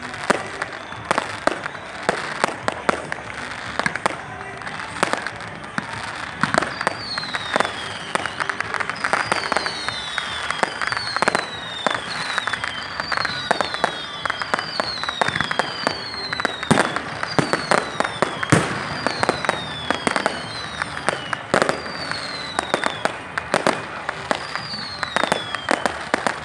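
Fireworks going off in a rapid run of sharp cracks and bangs. From about seven seconds in, whistling fireworks join, each whistle falling in pitch, about one a second.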